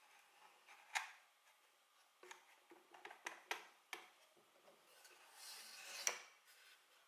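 Faint clicks and light knocks from small wooden and metal puzzle-box parts being handled. They come singly, then in a quick cluster in the middle, and end with a short rising scrape that stops in a sharp click about six seconds in.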